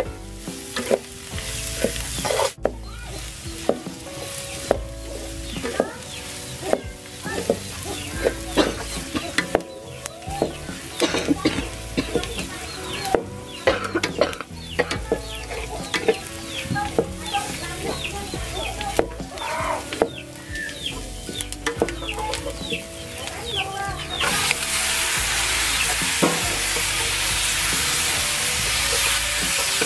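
A spatula scraping and knocking in a wok as chopped greens are stir-fried, with a light sizzle. About 24 seconds in, raw duck meat goes into the hot wok and a loud, steady sizzle takes over.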